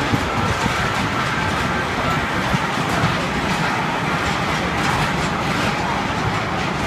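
Amusement-park elephant kiddie train ride running round its track: the steady rolling noise of its cars and wheels.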